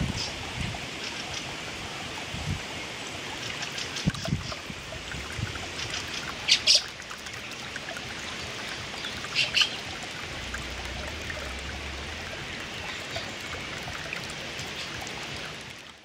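Fieldfare calling: two pairs of short, loud calls, one about six and a half seconds in and another about nine and a half seconds in, with fainter scattered chirps over a steady background hiss.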